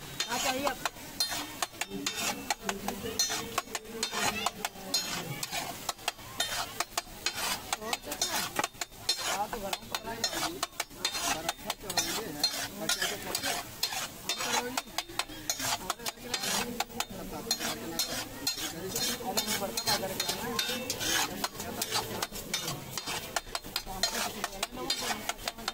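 A metal spatula scraping and tapping rapidly on a large flat iron griddle (tawa) as it stirs and chops chickpea chaat, with the hot gravy sizzling under it.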